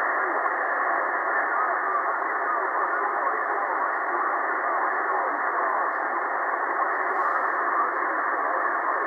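Tecsun PL-880 shortwave receiver's speaker playing the 80-metre amateur band in LSB: a steady, muffled hiss through its 2.3 kHz bandwidth filter, with a weak single-sideband voice faintly beneath it as the set is fine-tuned.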